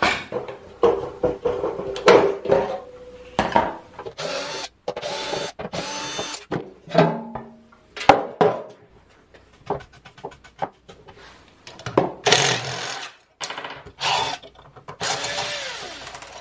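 Metal parts of a clothes dryer motor and its blower housing clattering and knocking as they are handled and taken apart, with several short runs of a cordless drill driving screws; one run winds down with a falling pitch near the end.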